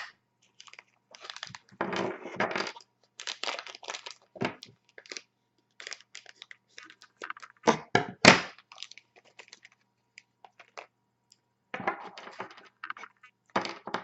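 Packaging and small plastic parts being handled: irregular crackling, rustling and clicking, with a couple of louder knocks about eight seconds in.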